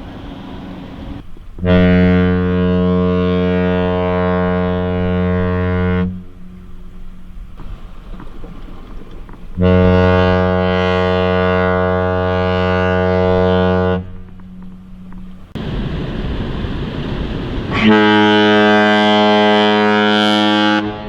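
Large ship's horn sounding two long, deep blasts of about four seconds each, with a pause between them. Near the end a third long blast comes in with a different, brighter tone, just after a short stretch of rushing noise.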